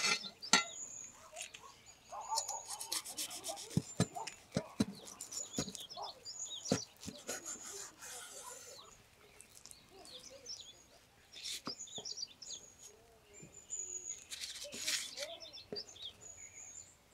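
A kitchen knife cutting an egg-battered Monte Cristo sandwich on a wooden cutting board: scraping strokes and sharp knocks of the blade against the board. Birds chirp in the background.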